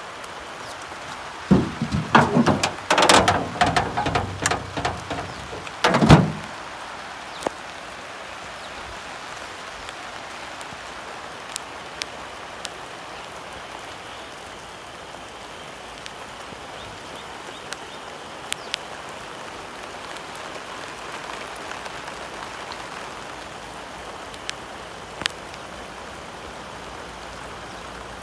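Steady rain, a continuous hiss with a few sharp ticks of drops. Between about one and a half and six seconds in, a run of loud voice-like calls stands out over it and is the loudest thing here.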